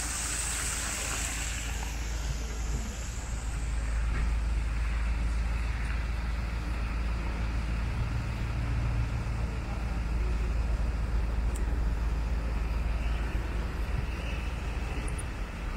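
City street traffic noise: a steady low rumble under an even background hiss, with a higher hiss that fades away over the first two seconds.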